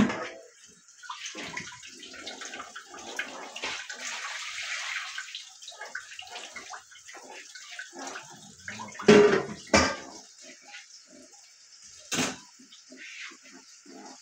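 Water being poured into a large cooking pot of meat and red peas, a splashing pour lasting several seconds, followed by three knocks.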